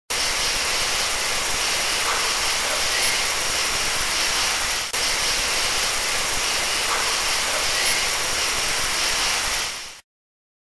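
Loud, steady hiss of static with no pitch in it. It breaks off for an instant about five seconds in, fades and cuts off just before the end.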